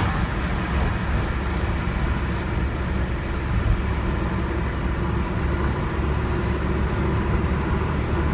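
Volkswagen Beetle driving, its engine and tyre noise heard from inside the cabin as a steady low rumble.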